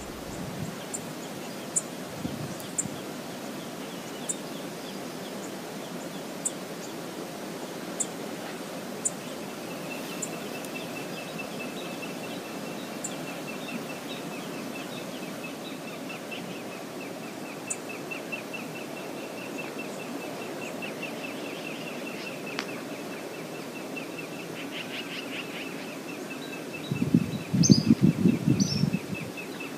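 Outdoor river ambience: a steady rush of noise with short, high bird chirps scattered through it, and from about ten seconds in a long, rapid, even series of high chirping notes that runs on. Near the end comes about two seconds of louder low rumbling, the loudest part.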